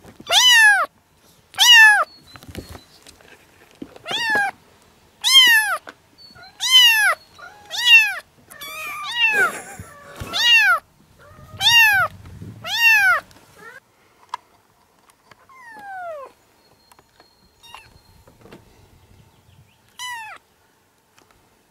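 A kitten meowing over and over, about ten high calls that each rise and then fall, roughly one every second and a half. After that come only a couple of fainter calls, one sliding down in pitch.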